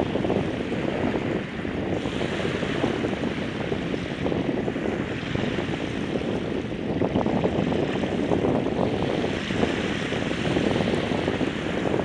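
Small surf waves washing in over a flat sandy beach at low tide, mixed with wind buffeting the microphone in a steady, uneven rumble.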